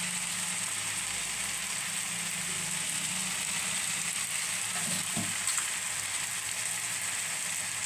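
Ghee frying in a hot pan beneath the layered biryani rice: a steady sizzling hiss that does not let up.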